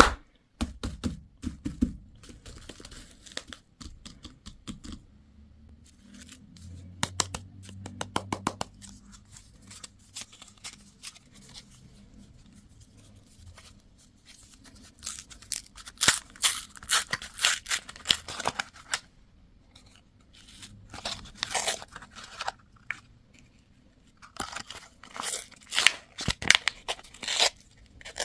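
Candy wrappers being torn open and crinkled in bursts of sharp crackling, loudest in clusters over the second half.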